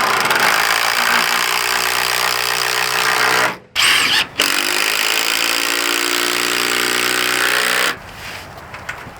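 Power drill running in two long runs of about three and a half seconds each, with a short burst between, driving screws to fix hinges onto a wooden door.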